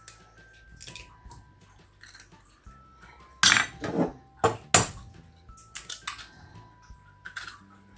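Eggs knocked against the rim of a saucepan to crack them, a few sharp knocks with the loudest about three and a half to five seconds in, and eggshell being pulled apart, over soft background music.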